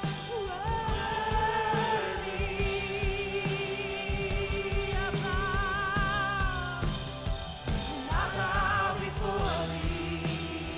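A live worship band playing a slow song with a steady drum beat. Long held melody notes with vibrato rise and fall above it, from a wordless voice or a lead instrument.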